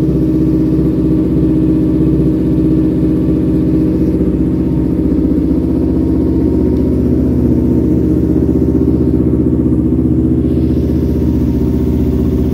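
Kawasaki Ninja 325 parallel-twin engine idling steadily with a deep, thumping exhaust note, the 'gluduk' sound.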